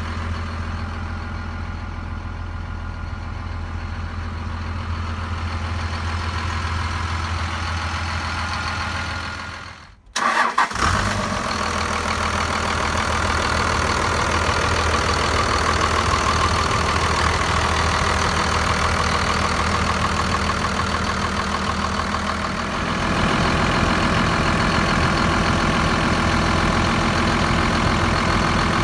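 Cummins 5.9-litre inline-six turbo diesel idling steadily. It breaks off briefly about ten seconds in, then is heard louder and clearer.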